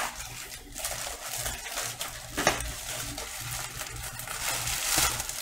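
Cardboard and paper packaging being handled and rustled, with a few sharp knocks: a sharp one at the very start and another about two and a half seconds in. The rustling swells near the end.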